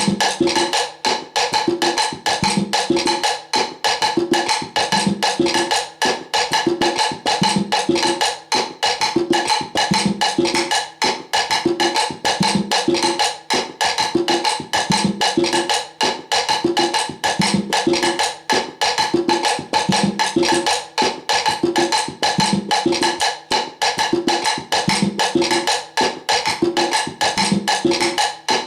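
Salsa percussion groove: a cáscara pattern clicking steadily on a wooden or shell surface over a looping conga tumbao part, whose drum tones recur in an even cycle of about two and a half seconds.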